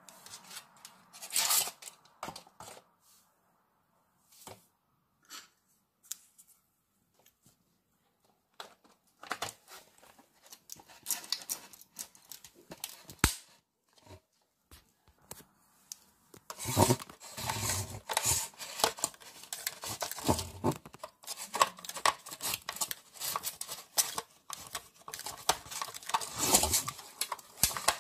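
Irregular rustling, scraping and clicking from hands handling objects close to the microphone. A few scattered clicks and one louder scrape about a second and a half in give way to denser rustling, which turns steady and louder over the second half.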